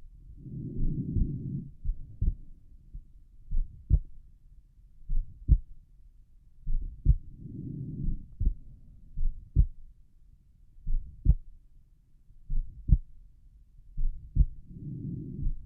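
Resting heartbeat heard through a stethoscope over the pulmonic valve area: slow, regular lub-dub thumps. A soft rushing swell rises three times, about seven seconds apart.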